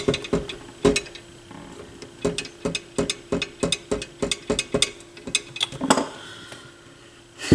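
Irregular clicks and light knocks of a turntable being handled and turned over, with a faint steady hum underneath.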